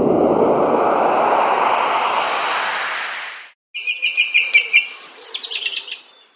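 A loud rush of noise that swells and rises in pitch, then cuts off sharply about three and a half seconds in. A songbird follows, singing a run of quick repeated chirps and then a falling trill.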